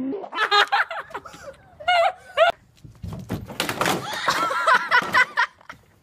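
High-pitched laughing and shrieking in several bursts, with a clatter of hard plastic ride-on toy cars crashing together about halfway through.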